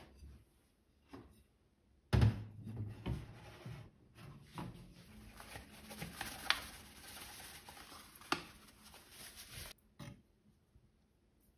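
A plate set down on a steel worktop with a knock. Then a paper bag of flour rustles and crackles for several seconds as flour is poured out onto the plate, stopping abruptly, with a spoon clicking against the plate near the end.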